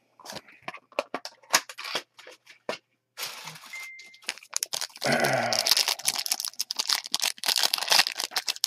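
Silver foil trading-card pack wrapper crinkling in the hands and then being torn open. Quick separate crackles at first, then a few seconds of continuous tearing and rustling from about halfway.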